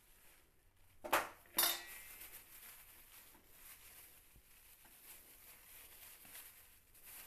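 A steel spoon knocking twice against a metal bowl and sieve, half a second apart, the second knock ringing briefly; then faint scraping.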